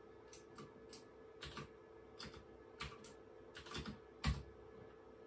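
Keys clicking on a computer keyboard as a short command is typed: a dozen or so irregular keystrokes, with one louder stroke about four seconds in, over a faint steady hum.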